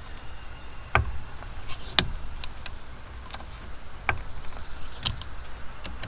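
Small Allen wrench T-handle working the steering wheel's retaining screws loose: a scattering of sharp metal clicks and taps, the strongest about one and two seconds in, over a low steady hum.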